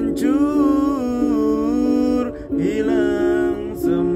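A man singing an Indonesian pop ballad in long, held notes over an instrumental backing track: two sung phrases with a short break between them about two and a half seconds in.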